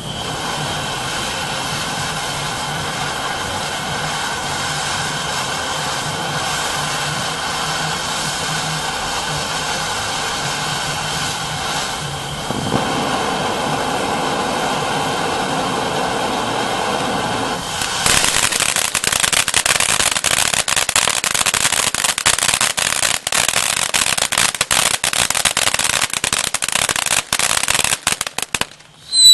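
'Peppermint Twist' ground fountain firework spraying sparks: a steady hiss that shifts in tone about twelve seconds in. About eighteen seconds in it turns louder into dense, rapid crackling, which stops just before the end.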